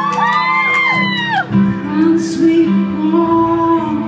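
Live music: a woman's voice singing long gliding, wordless notes over steady piano chords.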